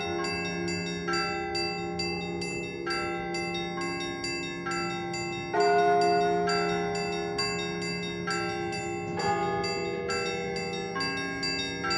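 Church bells ringing: smaller bells struck in a quick repeating pattern about twice a second, each note ringing on over a steady low hum. A heavier, louder bell stroke comes about halfway through and again some three and a half seconds later.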